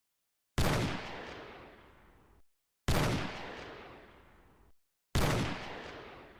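Three single gunshot sound effects about two seconds apart, each a sharp crack that trails off in a long echoing decay, with dead silence between them.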